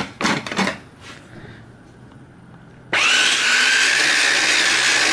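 A couple of knocks, then about three seconds in an electric mini chopper's motor starts with a brief rising whine and runs steadily, chopping steamed broccoli.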